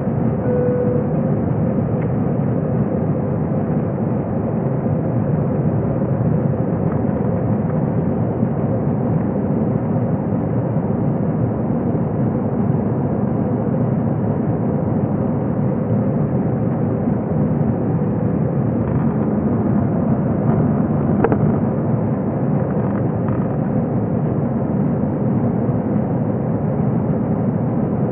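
Steady cabin noise of an Airbus A321's twin jet engines at climb power, mixed with rushing airflow, heard inside the cabin over the wing during the climb-out after takeoff.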